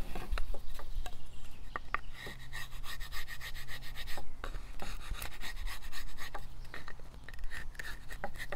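Steel chisel blade scraping along the edge of a wooden Hoffman brood-frame top bar in short, irregular strokes, paring away the rough leftovers where the wedge strip was pulled off.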